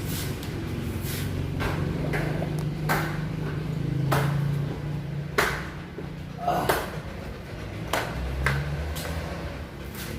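Irregular knocks and clatters, about ten of them, as a boxed machine and its packaging are handled and opened, over a steady low hum.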